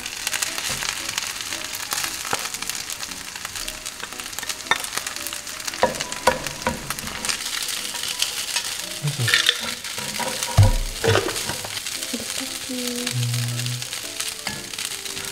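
Egg fried rice frying in a hot pan: a steady sizzle with clicks and scrapes of a spatula against the pan as it is stirred.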